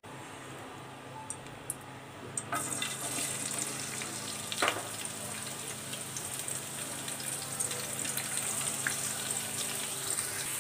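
Chopped onions sizzling in hot oil in a pot, stirred with a wooden spatula. The frying hiss starts about two and a half seconds in as the onions go into the oil and then holds steady.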